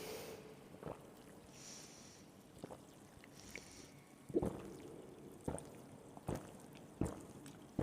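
Faint wet mouth sounds from a person eating, with a short click about once a second from about halfway through.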